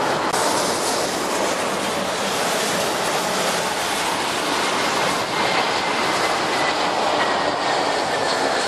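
Airbus A321 jet airliner on final approach, its engines giving a steady loud rushing roar, with a faint high whine that slowly falls in pitch over the second half as the aircraft passes.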